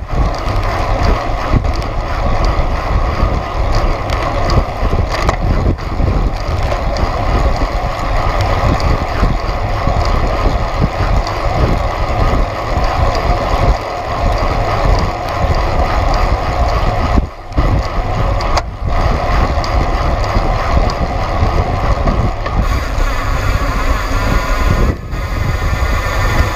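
Steady wind rush and road noise on a bicycle-mounted camera's microphone while riding at speed in a bicycle race pack, with two brief dropouts about two-thirds of the way through.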